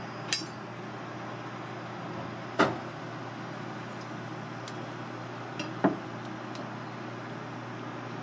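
Kitchen knife knocking and tapping against a plastic cutting board while a cuttlefish is cut and peeled: a few sharp knocks, the loudest about two and a half seconds in and another near six seconds, with fainter ticks between.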